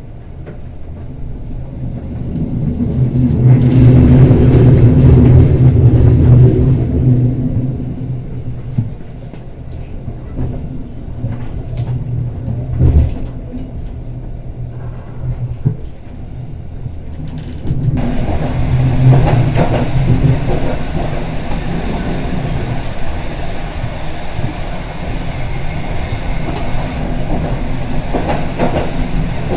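Bernina Express train running downhill on a steep 7% grade: a continuous rumble of wheels on rail with occasional clicks and a knock, swelling a few seconds in, and abruptly turning brighter and fuller about eighteen seconds in.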